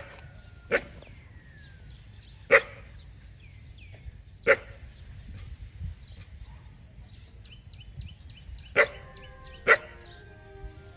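Village dog barking in warning at a stranger: about six sharp single barks spaced unevenly, with two close together near the end.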